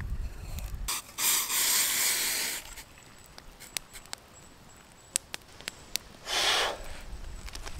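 Water from a camping pot poured into a metal camp mug: two bursts of rushing, splashing noise, a longer one about a second in and a short one near the end. Scattered sharp crackles from a wood campfire run underneath.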